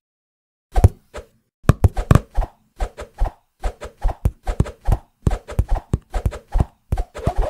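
A rapid run of cartoon fight sound effects, punches, hits and thuds several a second, starting about a second in.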